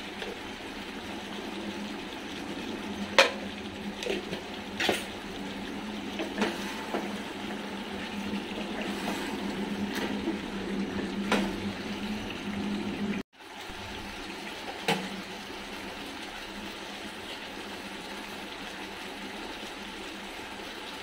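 Mutton in gravy sizzling in ghee in a steel kadai, over a steady low hum, with a wooden spatula scraping and knocking against the pan five or six times. After a brief cut about 13 seconds in, the sizzle goes on evenly with no stirring.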